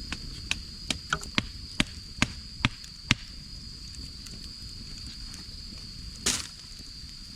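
Firewood being chopped with a blade: about nine sharp knocks in quick succession over the first three seconds, then a short hiss about six seconds in. A steady high insect drone runs underneath.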